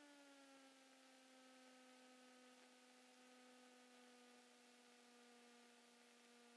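Near silence in the Cessna 172 cockpit intercom recording, holding only a faint steady whine with several overtones; its pitch slides down in the first second, then holds level.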